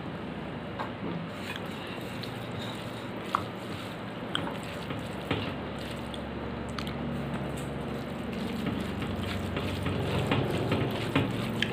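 Wet, squishy eating sounds of fingers mixing rice with dal and paneer-potato curry on a plate, with a few scattered small clicks.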